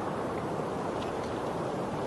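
Steady, even rushing noise of an outdoor nature ambience, with a few faint high ticks about a second in.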